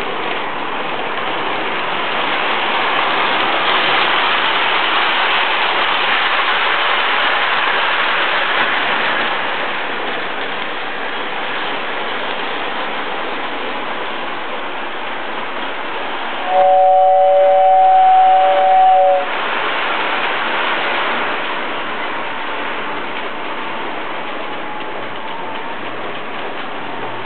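Toy electric train running around the layout track, a steady noise of motor and wheels that swells for several seconds early on and then eases. A bit past the middle, a loud two-note horn sounds once for about three seconds.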